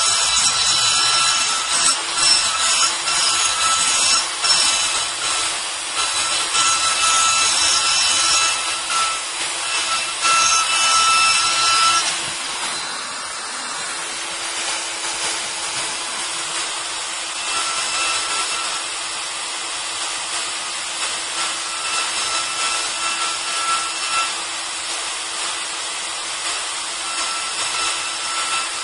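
High-speed electric router spindle on a robot arm, milling a block with a dense cutting noise over a steady motor whine. About twelve seconds in the cutter comes out of the material: the motor keeps running more quietly, with lighter, intermittent cutting later on.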